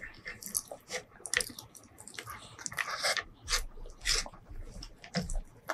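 Close-miked eating sounds: irregular wet smacks and clicks of chewing rice and fried fish curry, along with fingers squishing and mixing the rice by hand.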